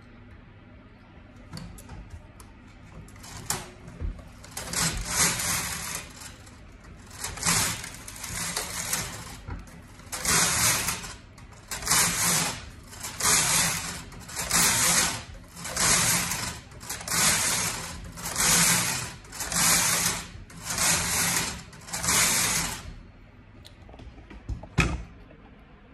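Brother KH881 punchcard knitting machine, its carriage pushed back and forth across the needle bed knitting two-colour Fair Isle rows. Each pass is a noisy sweep about a second long. The passes are spaced irregularly at first, then come steadily about every second and a half, and stop a few seconds before the end.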